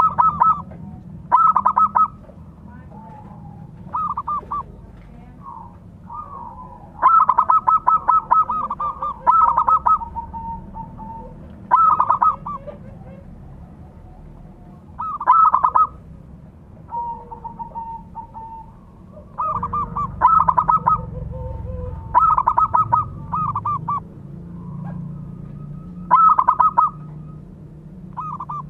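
Zebra dove (perkutut) cooing: repeated bursts of fast staccato coo notes, each lasting about a second and coming every two to four seconds, with softer rolling coos in between.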